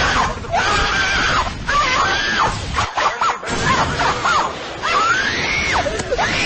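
High-pitched screaming cries, several rising and falling wails with one longer rising cry near the end, over a loud noisy background.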